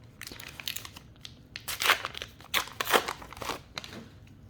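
Trading cards and their opened foil booster pack being handled: irregular crinkling and rustling, loudest about two to three seconds in.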